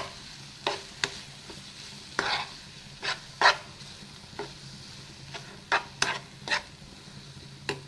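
A spatula stirring and scraping thick masala paste around a non-stick frying pan, about a dozen short scrapes at uneven intervals, over a faint sizzle of the paste frying with freshly added chilli powder and turmeric.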